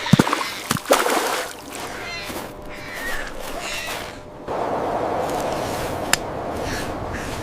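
Water splashing and sloshing, with a few sharp knocks in the first second and the water sound growing louder about two-thirds of the way through.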